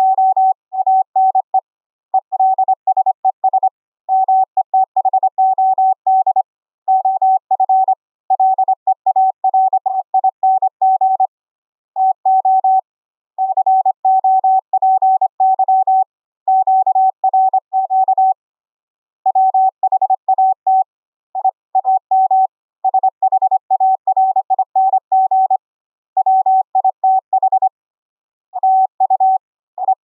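Morse code (CW) sent as a single steady mid-pitched tone keyed on and off in fast dots and dashes, in word-like groups with brief pauses, relayed over an internet voice call.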